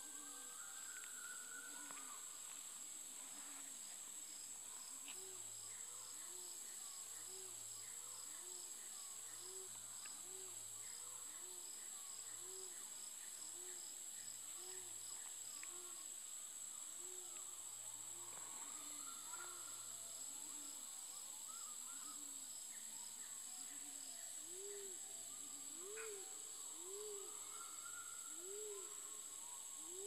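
A low hooting call repeated about once a second, each note rising and falling, getting louder over the last few seconds. Underneath runs a steady high-pitched insect drone.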